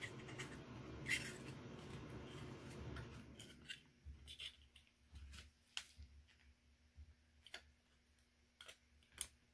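Faint, scattered small clicks and taps of a plastic petri dish, scalpel and plastic bag being handled. A low background hum drops away about three and a half seconds in.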